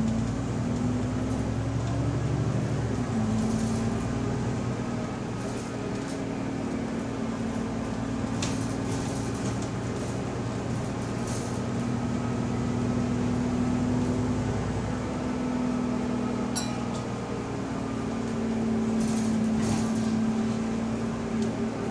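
Inside a bus cabin under way: the engine and drivetrain run steadily with a drone, and over it a faint whine that slowly rises and falls in pitch with road speed. That whine is the subtle odd differential noise heard on this bus. Occasional light rattles come from the body.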